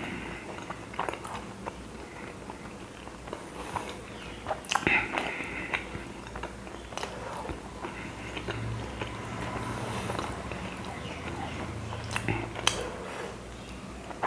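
A man biting and chewing mouthfuls of chapati, with irregular small clicks and smacks from the mouth.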